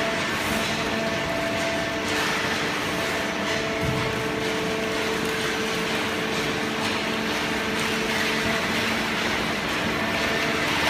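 Industrial hydraulic cardboard baling press running, a steady machine hum with several held tones over a constant rushing noise.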